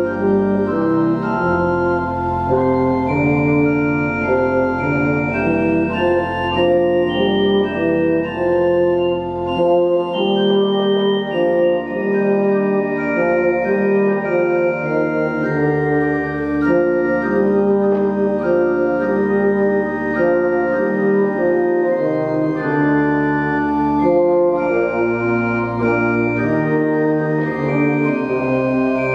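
Slow sacred music: an organ holding sustained chords over deep pedal bass notes, with a euphonium playing along. The bass drops out for stretches and comes back.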